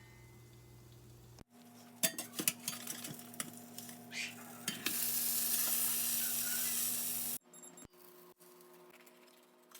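Pan and utensil clatter with a few sharp knocks, then a folded tortilla wrap sizzling in a hot pan for a couple of seconds before the sound cuts off suddenly.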